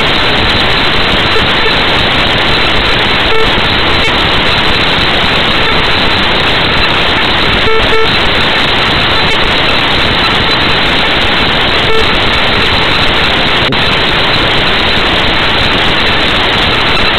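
Loud, even static-like noise with no speech, broken by a few short beeps about three, eight and twelve seconds in.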